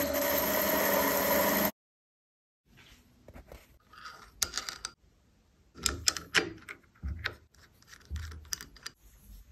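Schaublin 102 lathe running and cutting for about the first second and a half, cut off suddenly. After a short silence come scattered small metallic clicks and taps as the iron screw is set by hand into a slotted holder and a nut and washer are handled on it.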